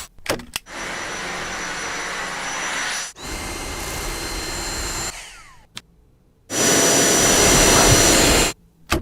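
Handheld vacuum cleaner motor running with a high whine, in several short stretches broken by abrupt cuts. Around five seconds in it fades out with a falling pitch as it winds down, and it runs again loudest near the end.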